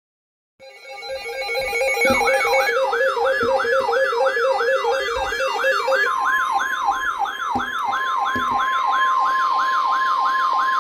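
Electronic siren wailing in quick falling sweeps, about three a second. It starts over a pulsing electronic beep pattern, and a steady high tone joins it about six seconds in. A few dull thumps sound under it.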